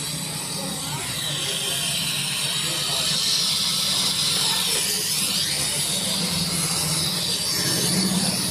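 Steady loud hiss of pressurised gas, rising and falling a little in pitch about halfway through, over a low steady machine hum.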